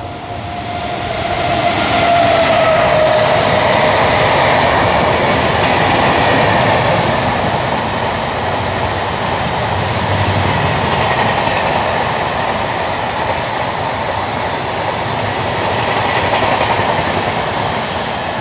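Express train hauled by a WAP-7 electric locomotive passing at speed: a whine that drops in pitch as the locomotive goes by in the first few seconds, then the steady loud rumble and clatter of the passenger coaches' wheels rolling past on the track.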